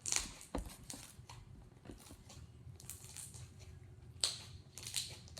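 Slime being squished and worked by hand, giving scattered short sticky clicks and crackles, with louder pops right at the start and about four seconds in.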